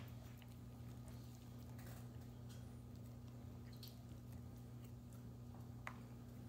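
A saluki nosing at a plastic dog puzzle feeder: a few faint clicks of the plastic pieces, the sharpest near the end, with quiet chewing, over a steady low hum.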